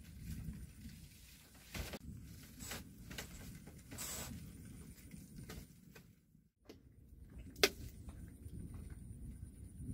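Low rumble of wind on the microphone, with a few light knocks and handling clicks, and one sharp click near the end.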